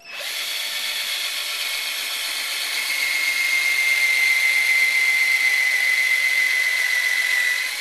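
Handheld power drill starting up and running steadily with a high whine as it bores an axle hole into a pinewood derby car's wooden block. It grows louder about three seconds in and eases slightly near the end.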